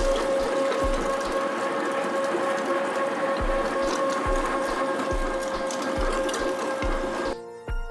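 Electric commercial meat grinder running steadily with a constant motor whine, mincing raw fatty meat and lamb; it cuts off suddenly near the end.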